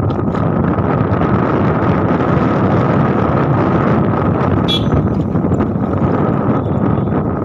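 Steady wind rush buffeting the microphone of a moving two-wheeler, mixed with its running engine and road noise. A brief high sound cuts through about halfway.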